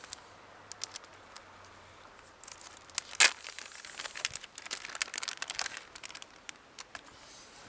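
Plastic packet of a Savage Gear soft shrimp lure crinkling as it is handled and opened, with scattered light clicks, one sharp crack about three seconds in, and a run of dense crinkling after it.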